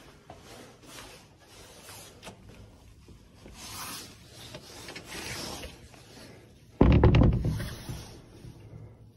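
Clothing and handling noise rubbing on a handheld camera's microphone while walking, then about seven seconds in a sudden loud thump that dies away over about a second.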